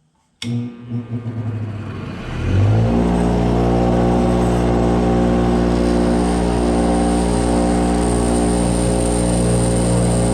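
Electric grinder spinning up over about two seconds, then running at a steady pitch while grinding down the corners of a metal handguard clamp.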